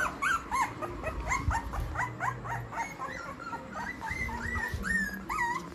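Rottweiler puppies whimpering and squeaking: a string of short, high whines, several a second and often overlapping.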